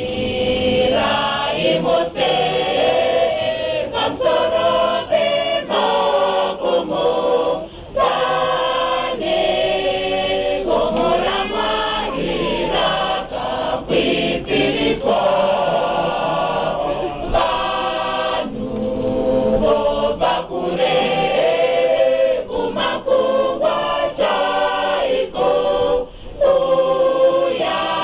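A choir of men and women singing together, unaccompanied, with short breaths between phrases.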